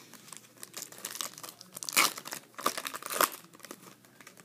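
Crinkly plastic or foil packaging crackling and tearing in the hands during a trading-card pack break, in an irregular run of crackles with the loudest about two and three seconds in.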